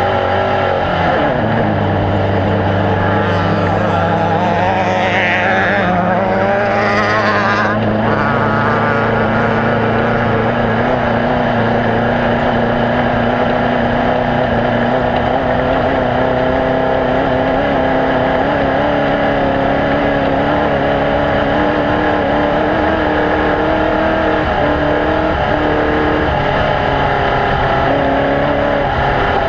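Off-road desert race vehicle engine running hard and steadily, its pitch drifting slowly up and down. A few seconds in, a higher whine rises and falls, then cuts off suddenly.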